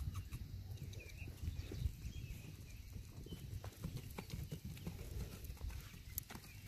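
Hoofbeats of a ridden horse on dry dirt and grass: a run of soft, uneven thuds.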